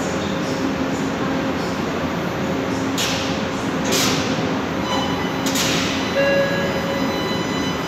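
CSR-built metro train standing at the platform with its equipment running steadily, giving three short air-release hisses about three, four and five and a half seconds in. From about five seconds in, a whine of several steady high tones from the traction equipment sets in over the noise.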